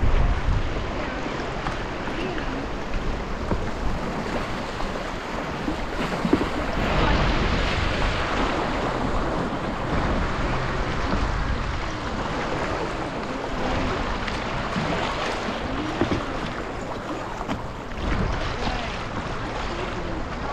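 Steady rush of river water with wind buffeting the microphone.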